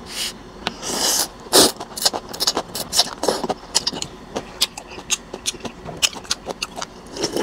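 Rice vermicelli noodles slurped from chopsticks in a couple of hissing pulls within the first two seconds, then close-up wet chewing with many small mouth clicks and smacks.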